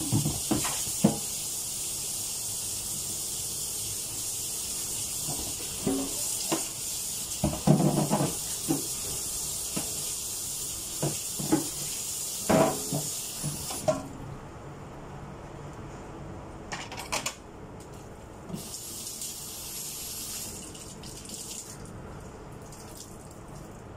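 Tap water running into a sink, with knocks and clatter of items being handled and rinsed under it. The water stops about fourteen seconds in, then runs again briefly a few seconds later.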